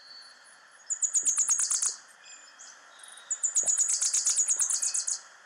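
A bird singing: two runs of rapid, high-pitched chirps at about ten notes a second, the second run longer, over a faint steady hiss.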